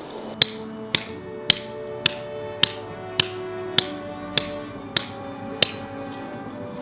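A hammer driving a metal tent peg: ten sharp ringing blows about twice a second, slowing slightly near the end, the ring changing pitch from blow to blow.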